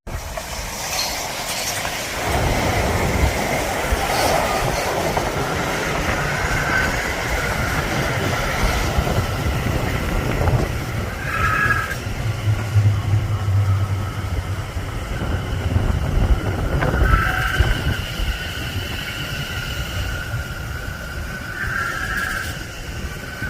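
A train running through a station, a continuous rumble of wheels on rail with steady high-pitched whining tones that come and go.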